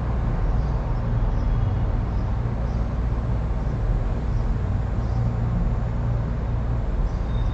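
Steady low rumble of background noise, strongest in the bass, with no speech.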